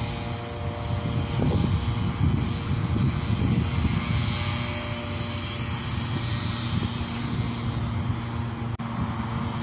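A steady engine drone over a low rumble, with a brief dropout near the end.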